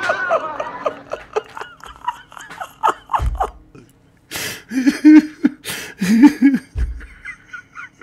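A man laughing hard: runs of short, high-pitched laughs broken by two loud, noisy gasps for breath, with two low thumps in the middle and near the end.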